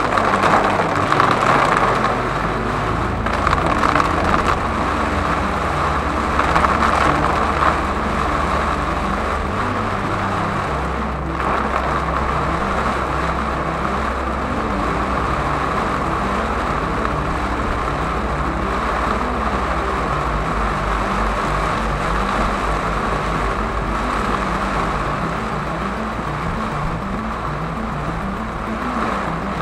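A car driving through heavy rain, heard from inside the cabin: a steady rush of rain and tyre spray over the low hum of the engine.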